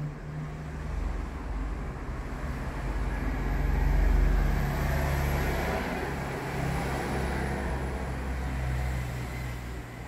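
Low rumbling background noise that swells about four seconds in and then eases off.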